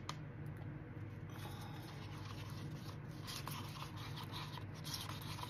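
Epoxy resin and mica powder being stirred in a paper cup: a stir stick scraping and rubbing against the cup's sides and bottom in quick, irregular strokes, starting about a second in after a couple of light clicks.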